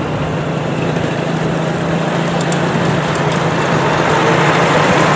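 Yamaha 125Z single-cylinder two-stroke motorcycle engine running steadily on the move. One steady engine note sits under a constant rush of noise, growing a little louder toward the end.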